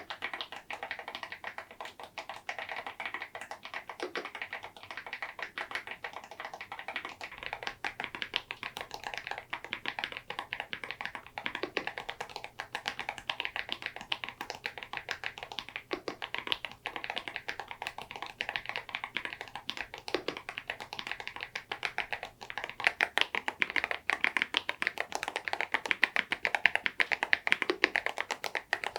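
Continuous fast typing on an EPOMAKER Dynatab 75X mechanical keyboard with tuned KTT Macaron Blue tactile switches and KEYTOK KDA-profile keycaps: a dense, unbroken run of key clacks. The keystrokes get louder and harder about three-quarters of the way through.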